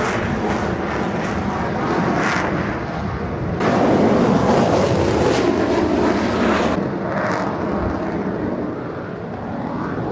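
Fighter jet flying past, the rush of its jet engines getting louder a few seconds in and easing off a little toward the end.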